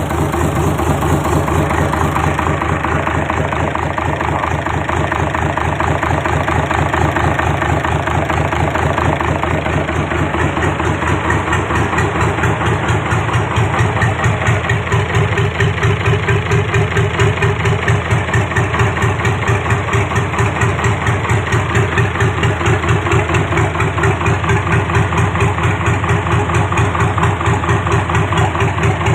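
Mitsubishi 6D16 inline-six diesel engine idling steadily with an even, rapid firing pulse.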